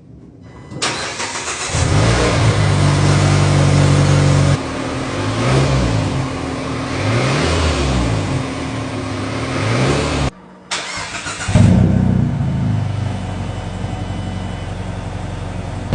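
Mazda3 engine breathing through a newly installed Borla aftermarket exhaust: it starts about a second in, runs steadily, then is revved up and down several times. It drops out briefly just after ten seconds, comes back, and is revved again near the end.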